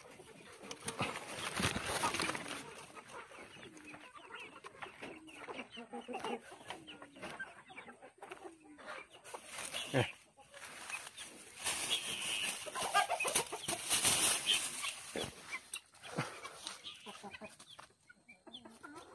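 Chickens clucking in a run of short repeated calls, with bursts of rustling from leaves and a plastic bag as limes are picked.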